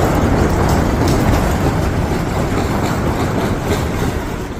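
Earthquake shaking: a loud, deep, continuous rumble with clattering and rattling mixed in, easing slightly near the end.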